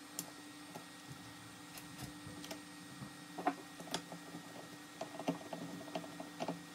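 A screwdriver turning a lug screw to fasten a snare drum lug to its wooden shell: scattered small clicks and light knocks of metal on metal and wood, the sharpest about three and a half and four seconds in. A steady low hum runs underneath.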